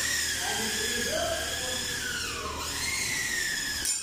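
A continuous high-pitched mechanical squealing whine that slides down in pitch about two and a half seconds in, climbs back up, and cuts off abruptly near the end.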